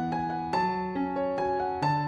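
Background piano music: soft keyboard chords and melody notes struck about twice a second.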